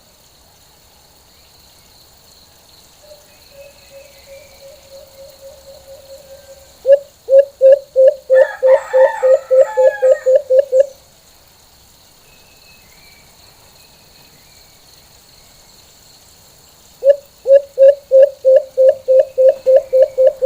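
White-eared brown dove calling: a quieter run of low hoots, then two bouts of loud, rapid low hooting notes, about three to four a second. A brief burst of higher-pitched chatter overlaps the first loud bout.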